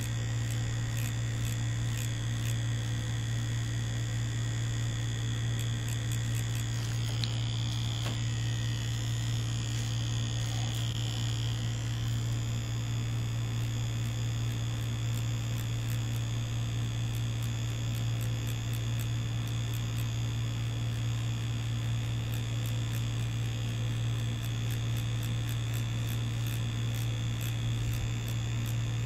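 Tattoo machine running with a steady, even buzz.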